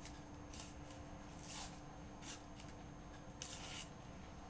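Factory-edged S30V blade of a Benchmade 615 Mini-Rukus folding knife slicing through thin phone book paper: four short, faint rasping cuts, the last one the longest.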